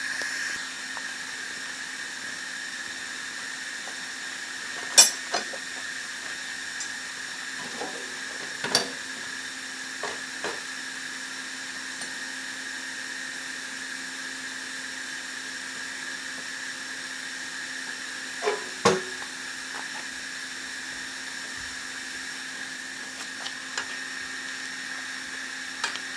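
Forge blower running steadily with a hum and a faint whine, while a few short clinks and knocks of metal come now and then, the loudest about five seconds in and again a little before twenty seconds.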